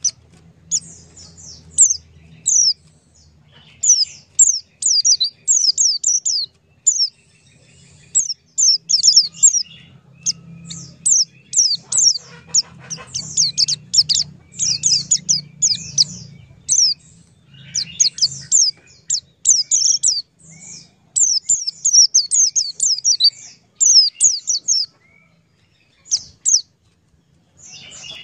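Birds chirping: many short, high, downward-sweeping chirps, several a second, with a brief lull near the end. A faint low hum runs underneath.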